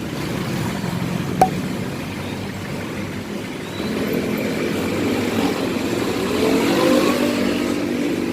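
Motor vehicle engine running steadily, then rising in pitch as it accelerates near the end, with a sharp click about a second and a half in.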